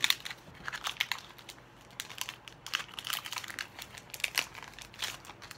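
Foil wrapper of a Pokémon Hidden Fates booster pack crinkling as it is handled and opened by hand, a run of irregular crackles.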